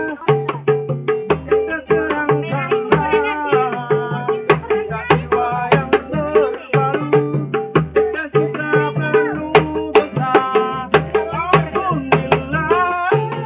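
A man singing to his own acoustic guitar strumming, with a small two-headed hand drum keeping a steady beat of sharp slaps and deep thumps.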